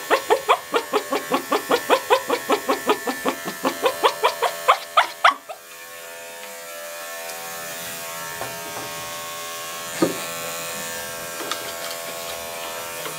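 Mini clipper with a #40 blade running steadily while shaving a dog's paw pads. For about the first five seconds a rapid rhythmic pulsing, about five a second, rides over it; then the clipper runs alone, with a single click about ten seconds in.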